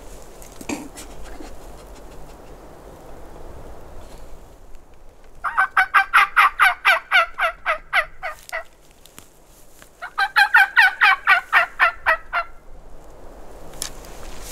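Turkey calls: two runs of quick, evenly repeated notes, each lasting about three seconds, a little over a second apart.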